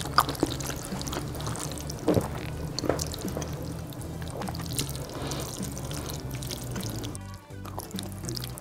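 Wet slurping and chewing of jjajangmyeon noodles in black-bean sauce, in short separate slurps, over background music with a steady bass line.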